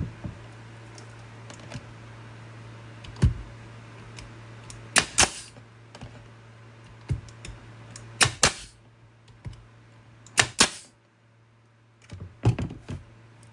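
Pneumatic nail gun firing 1.5-inch nails, a series of sharp cracks spaced a couple of seconds apart, several coming in quick pairs.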